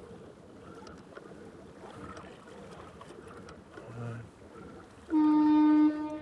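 A single loud horn blast a little over five seconds in: one steady pitch, held for nearly a second, then carrying on fainter. Under it, a steady low rush of moving water and wind.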